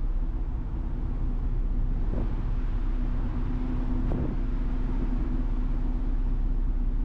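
Steady low rumble of a moving vehicle's engine, with a steady hum coming in about two and a half seconds in and two brief knocks.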